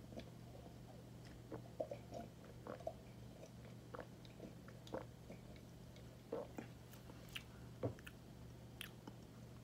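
Soft swallowing and wet mouth clicks of a man sipping a drink from a glass and then smacking his lips as he tastes it, scattered small sounds over a low steady hum.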